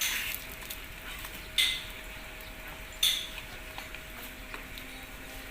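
Three short, sharp knocks, about a second and a half apart, over a faint steady hum.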